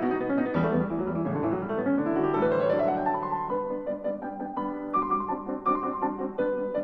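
Piano music: a steady stream of notes, with a run climbing upward about two seconds in.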